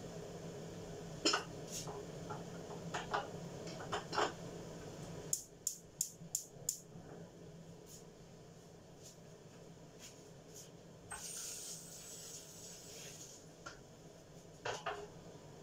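Chicken adobo cooking in a covered pan on a gas burner: scattered clicks and pops over a low steady hum that drops off about five seconds in, with a quick run of about five clicks and a brief hiss later on.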